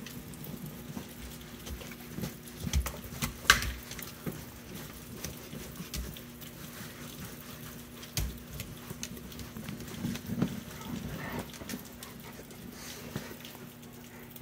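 A towel rubbing a wet dog dry, with scattered knocks and taps; a sharp knock about three and a half seconds in is the loudest.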